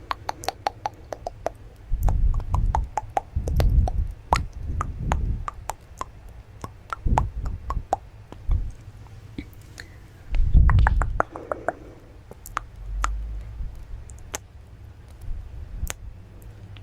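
Close-miked ASMR mouth sounds: many small wet clicks and pops, broken by several louder muffled squishy bursts.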